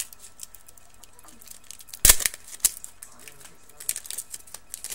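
Trading cards and packs being handled on a table: light clicks and snaps of card stock, with one sharp thump about two seconds in and a few more clicks near the end.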